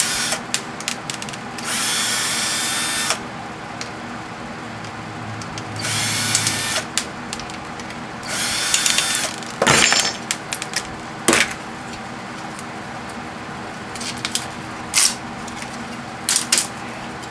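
Cordless drill-driver running in three short bursts, backing screws out of a microwave oven's sheet-metal casing, with clicks and knocks of loosened parts in between.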